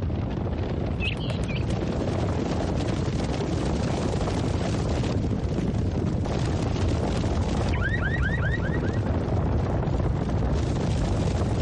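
A huge crowd running through a street: a loud, steady rumble and roar of many feet and bodies. About eight seconds in, a quick run of short rising chirps sounds over it.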